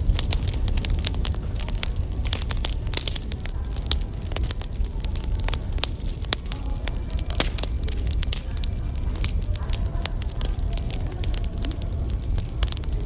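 Wood fire crackling, with frequent irregular pops and snaps over a steady low rumble.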